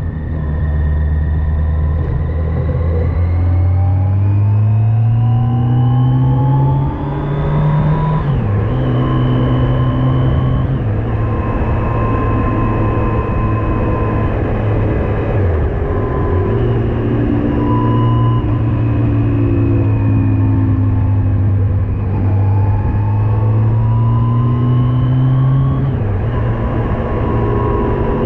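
Yamaha FJR1300AE's inline-four engine pulling under acceleration, its note rising and dropping sharply at upshifts about 8 seconds in and again near the end, over steady wind and road noise.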